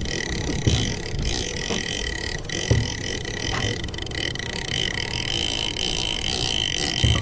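Small boat's outboard motor running steadily at trolling speed, a low rumble with a steady high whine over it, and three dull thumps, about one, three and seven seconds in.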